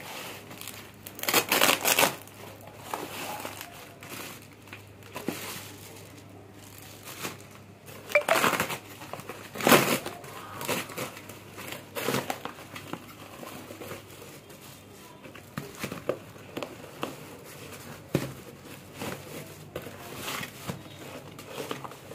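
Corrugated cardboard and woven plastic sack packaging being cut with a knife and torn apart by hand: irregular crinkling and ripping bursts, loudest a second or two in and again around eight to ten seconds in.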